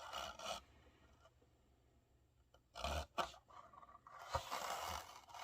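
Faint handling noises: a brief rustle or scrape about three seconds in and a longer, soft rustle a little past four seconds.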